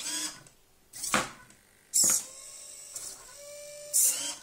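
Hobby servo motors of a small homebuilt robot arm whirring in four short bursts as the arm swings, with a steadier whine between the last two bursts.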